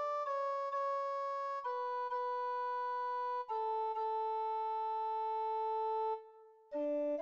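Computer playback of a hymn's melody line from an animated score, one sustained note at a time in a steady, even tone. The line steps down note by note, the last note held about three seconds. A short gap follows, then a lower note begins near the end.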